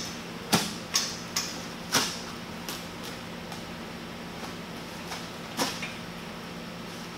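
A tall cardboard shipping box being opened by hand at the top: a handful of sharp snaps and scrapes as the taped flaps are pulled, most of them in the first two seconds and one more near the end, over a steady low hum.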